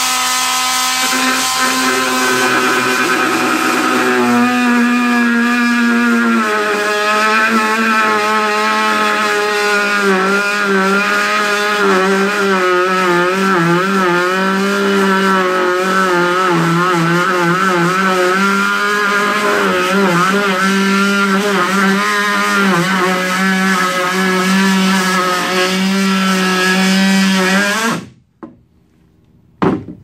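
Ridgid JobMax 24-volt cordless multi-tool running under load while making a cut: a steady motor whine whose pitch wavers and dips as the blade bites. It stops suddenly near the end.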